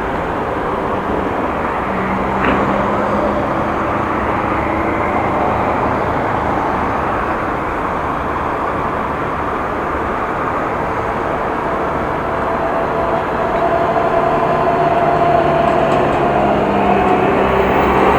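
Road traffic at a junction: motor vehicles running and passing, a steady engine hum over road noise that grows a little louder in the second half.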